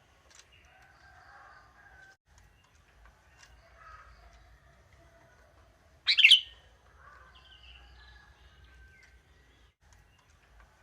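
Young wild sooty-headed bulbul (kutilang) singing its typical monotonous call: short phrases repeated every few seconds, with one short, much louder call about six seconds in.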